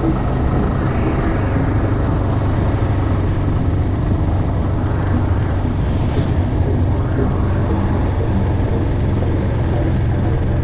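Motorcycle engine running steadily on the move, with rushing wind noise over the microphone.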